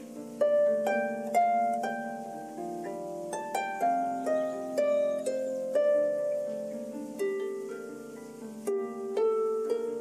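Solo harp improvising: plucked notes, about one or two a second, each ringing on under the next so that they overlap into soft chords, with a slower, sparser stretch a little past the middle.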